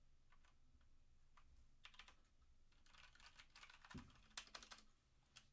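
Faint keystrokes on a Motospeed CK61 60% mechanical keyboard with heavy switches. A few scattered key presses give way, about halfway in, to a quick run of typing, with one low thump during the run.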